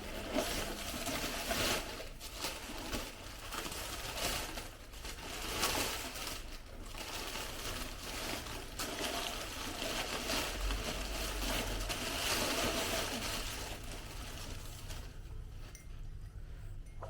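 New ceramic coffee mugs and their packaging being handled and unwrapped: continuous rustling with light knocks and clinks, growing quieter for the last couple of seconds.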